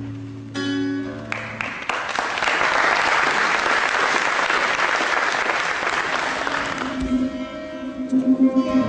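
Audience applauding over live guitar. A guitar chord rings at the start, the clapping swells from about two seconds in and dies away around seven seconds, and the guitar plays on after it.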